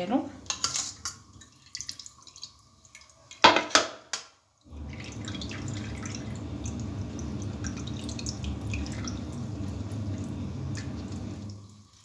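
Small clinks and drips from a glass of lemon juice as its seeds are picked out. About four seconds in the sound cuts out briefly, then a steady low hum runs until near the end.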